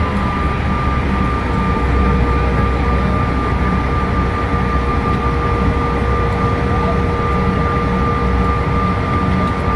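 Bombardier CRJ-900's rear-mounted GE CF34 turbofans at taxi power, heard from inside the cabin: a steady whine in two tones over a low rumble as the aircraft taxis.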